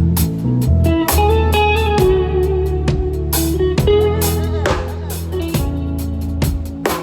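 Live band playing during a sound check: electric guitar lines over a held bass and a drum kit keeping a beat.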